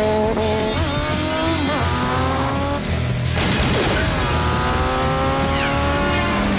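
Motorcycle engines revving, their pitch climbing and falling as the bikes speed and corner, in a film mix with music underneath. A loud noisy burst comes a little past the middle.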